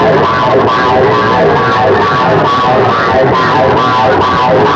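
Music played very loud through a tall stack of horn loudspeakers on a public-address rig, running on without a break.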